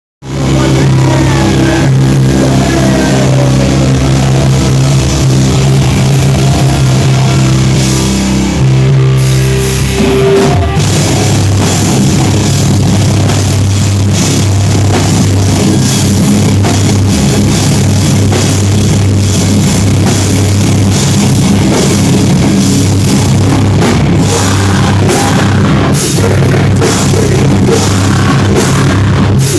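Heavy metal band playing live, loud: distorted guitars, bass and drum kit. Low notes are held for about the first ten seconds, then the band moves into a busier, denser riff.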